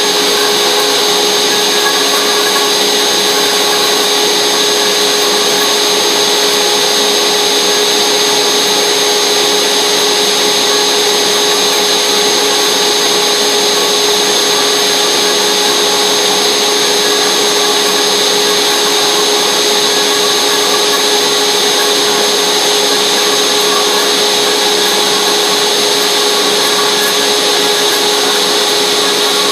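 CNC router spindle running steadily while its bit carves a foam nose cone. It makes an unbroken whine over a rushing noise, with no pauses or changes in speed.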